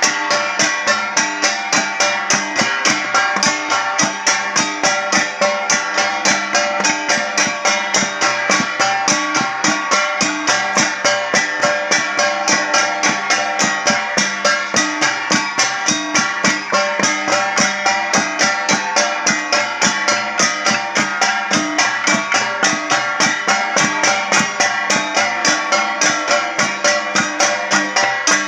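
Ifugao traditional gong music: gongs and percussion struck in a fast, steady, unbroken beat, several strikes a second, with the metallic tones ringing on between strokes.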